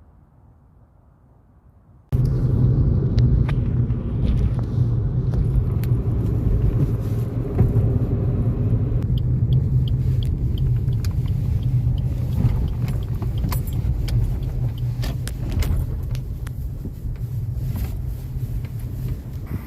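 A car driving: a steady low engine and road rumble with small clicks and rattles, starting abruptly about two seconds in.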